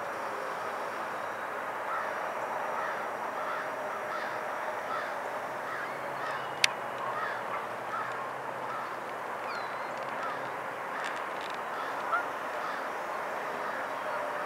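A flock of waterbirds on the river calling continuously, many overlapping honking calls at once. A single sharp click sounds about halfway through.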